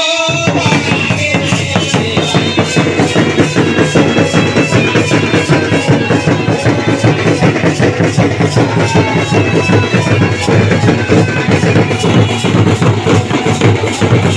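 Dhol and nagara drums played together in a fast, steady Jhumar rhythm, the nagara beaten with sticks. The drumming starts abruptly about half a second in and stops near the end.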